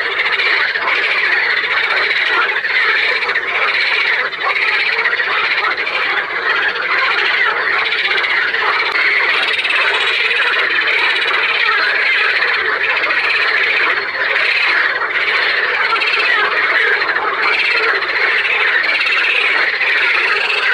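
Frogs calling in a dense, unbroken chorus of overlapping croaks.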